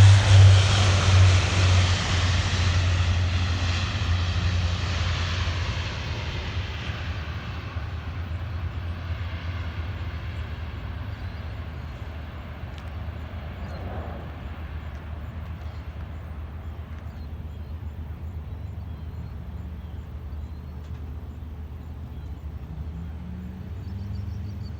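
Four-engine turboprop C-130 Hercules ("Fat Albert") climbing away after take-off. Its loud propeller and engine drone fades over the first several seconds to a faint, steady distant hum.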